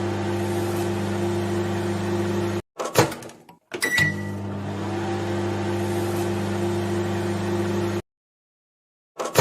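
Microwave oven running with a steady electric hum. About three seconds in the hum stops for a sharp clunk, then starts again with a short high beep. It cuts off suddenly about eight seconds in, and after a second of silence there is a click near the end.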